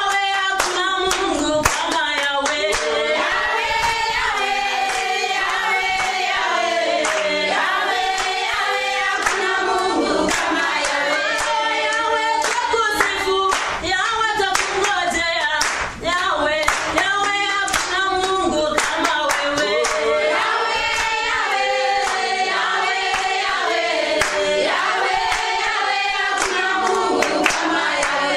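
A group of voices singing together, a cappella, with hand claps on a steady beat.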